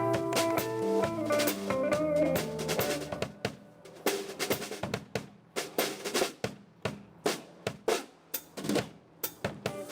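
Small live band with guitar playing for about three seconds, then the guitar drops out and the drum kit plays alone: separate sharp snare and rimshot hits with bass drum strokes in a solo break.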